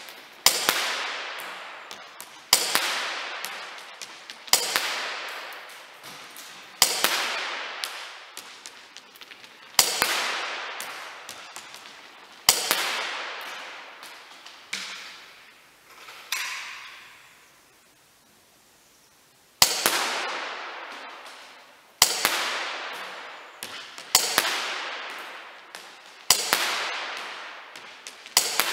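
Gas blowback airsoft pistol firing single shots, about one every two seconds. Each shot is a sharp crack followed by a fading tail. About two-thirds of the way through, the firing stops for roughly three seconds before it resumes.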